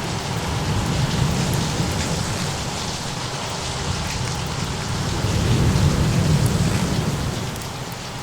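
Steady heavy rain with a low roll of thunder that swells about five to seven seconds in.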